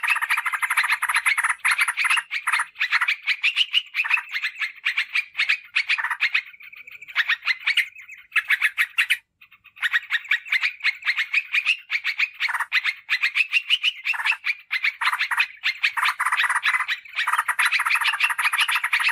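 Yellow-vented bulbul (trucukan) calls played as a lure recording: fast, dense chattering trills that break off briefly about nine seconds in.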